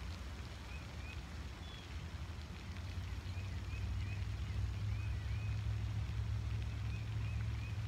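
Outdoor ambience: a steady low rumble that grows louder about three seconds in, with small birds chirping faintly several times.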